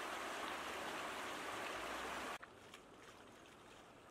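Rushing water of a shallow stream flowing fast over rocks, a steady hiss that cuts off suddenly about two and a half seconds in. After it come only a few faint splashes of feet wading through shallow water.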